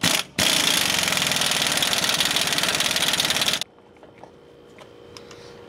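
Impact gun hammering on a differential pinion nut: a short blip, then a steady rapid hammering run of about three seconds that stops abruptly. It is tightening the nut to crush the crush sleeve and set the pinion bearing preload.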